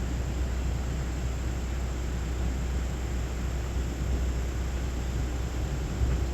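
Steady low rumble and hiss of a vehicle driving along, with even road and engine noise and no changes.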